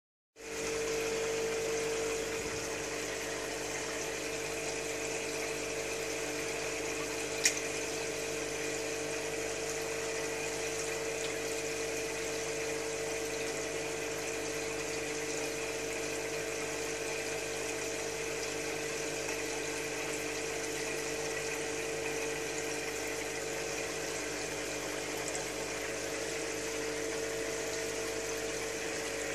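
Aquarium equipment running: a steady hum with water bubbling and splashing from a stream of air bubbles along the top of the tank. One sharp click about seven seconds in.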